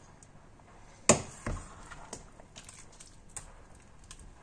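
A serving spoon scooping thick porridge from a stainless steel pot into a food flask: one sharp knock about a second in, a softer knock just after, then a few faint clicks.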